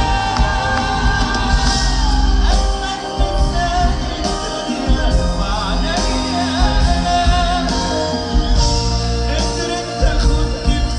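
Live concert music: a band with keyboards plays an Arabic pop song while a male singer sings over it.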